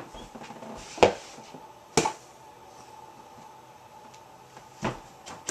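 A basketball thumping against hard surfaces in a small room: three sharp knocks, about a second in, a second later, and near the end.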